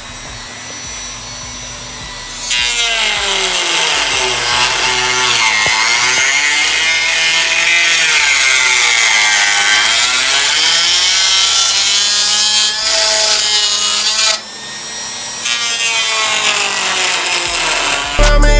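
Power tool cutting through a widebody fender panel, its motor pitch sagging and rising as it bites into the material. It grows louder a couple of seconds in and stops briefly a few seconds before the end, then resumes.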